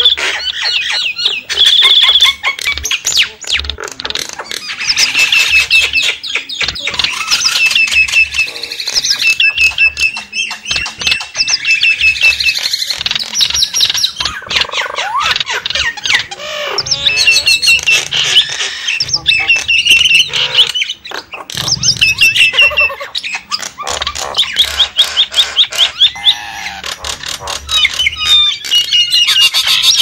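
Javan myna calls in a dense, continuous chatter of harsh squawks, whistled notes and rapid clicking runs, mostly high-pitched, with no pause.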